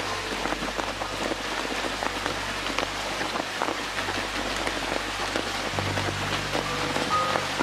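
Steady rain falling: a dense, even hiss with many separate drop hits.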